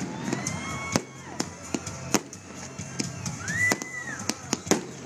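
Fireworks display: aerial shells bursting in sharp, irregular bangs and crackles, roughly two a second. A high whistle rises, holds and falls about three and a half seconds in.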